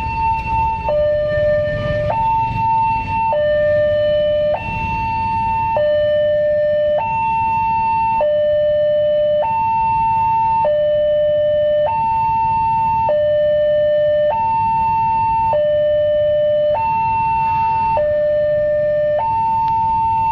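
Indonesian railway level-crossing warning alarm sounding from the crossing's loudspeaker: an electronic two-tone signal that alternates evenly between a higher and a lower tone, each held a little over a second. It means the barrier is down for an approaching train.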